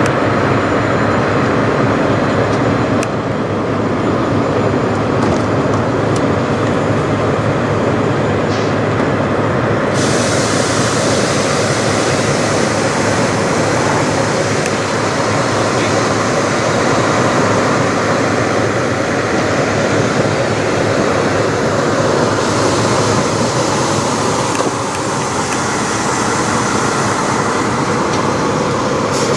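Peterbilt semi truck's diesel engine idling steadily.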